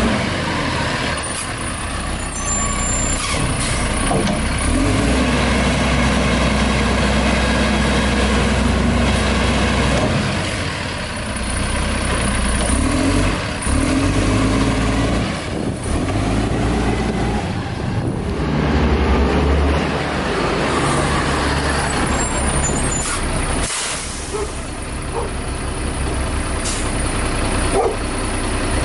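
WhiteGMC garbage truck with a Heil front-loader body, its engine running as it creeps along and stops at the cans. Air brakes hiss a few times.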